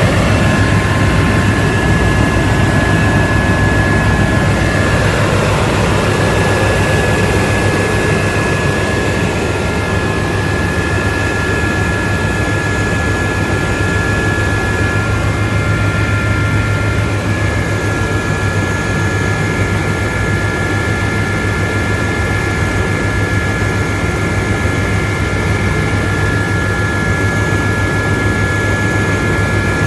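Aérospatiale Gazelle helicopter in steady cruise flight, heard from inside the cabin: the Astazou turboshaft's steady high whine over the low, fast-pulsing drone of the rotors and a broad rush of airflow.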